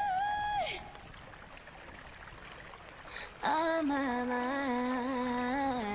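A woman sings wordless held notes in a slow pop song. A high note ends just under a second in, then only a faint backing plays, then a lower note with a wavering pitch comes in about three and a half seconds in and holds.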